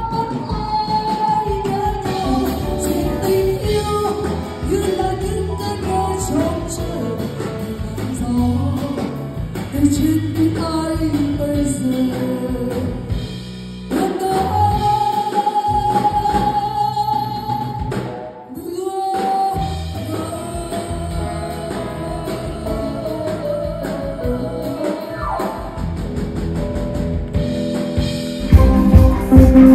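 A live band playing through a PA with a woman singing lead into a microphone. The music breaks off abruptly and resumes a couple of times, and heavier drum beats come in near the end.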